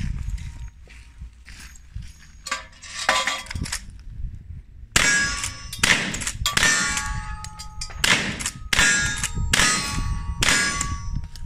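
Rifle fired in quick succession at steel plate targets: from about five seconds in, around nine shots roughly 0.7 s apart, each followed by the clang and ring of a struck steel plate. The first few seconds hold fainter metallic clinks and ringing.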